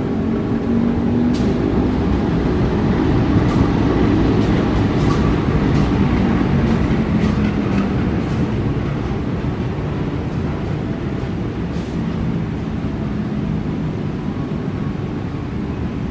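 KAI diesel-electric locomotive passing close with its engine running, followed by its passenger coaches rolling by with scattered wheel clicks. Loudest a few seconds in, then easing gradually as the coaches go past.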